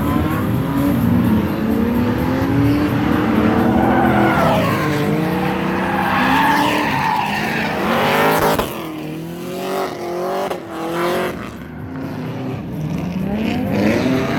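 Drift cars' engines revving hard, the pitch climbing and falling again and again as they slide, with tyres squealing. The level drops about nine seconds in, and shorter revs follow.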